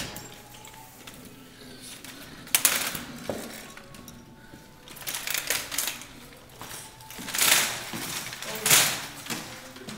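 Automatic swing doors operating at an entrance: a sharp clunk about two and a half seconds in, then several short rushes of hissing noise, the loudest two near the end.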